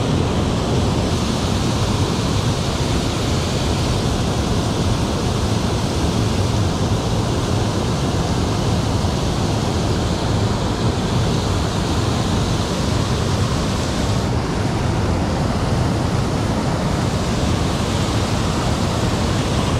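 Steady rushing of water pouring over a low dam's spillway, a constant roar with no breaks.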